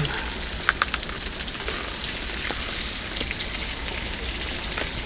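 Pork belly sizzling in a frying pan over a camping gas burner, a steady hiss as it is stirred, with a few sharp clicks about a second in.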